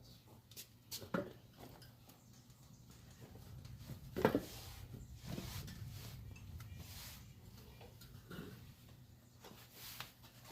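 A few scattered light knocks and clinks of handled objects, the loudest about four seconds in, over a steady low hum.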